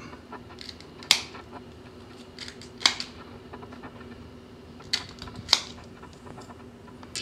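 Kitchen shears snipping through the shell of a cooked Dungeness crab leg: four sharp snips spread over several seconds, with small clicks between them.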